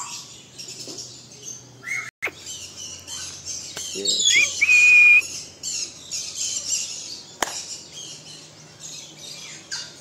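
A mix of caged birds chirping continuously, with one loud, clear whistle preceded by a short rising note about four to five seconds in.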